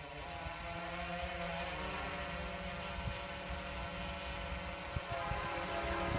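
Steady motor hum made of several pitched tones that waver slightly, over a low rumble of wind buffeting the microphone.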